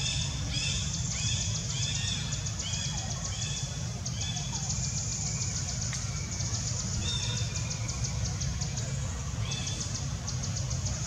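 Forest ambience: insects buzzing in a high, fast-pulsing trill that comes and goes, with runs of short repeated chirping notes, over a steady low rumble.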